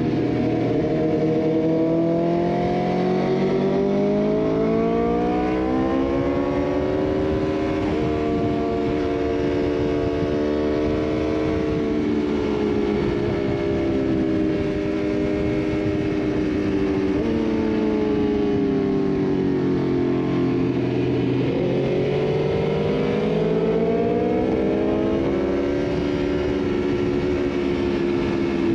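The rider's own motorcycle engine under way, its note rising as it accelerates and then stepping down in pitch at several gear changes, over a steady rush of wind noise.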